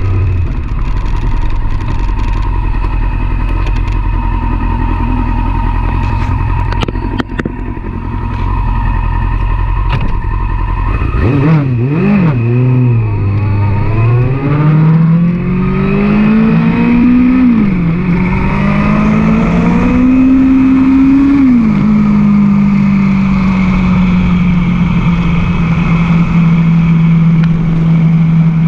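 Yamaha sport motorcycle engine idling for about ten seconds, then pulling away: the engine note climbs and drops sharply twice at upshifts, then holds steady at cruising speed.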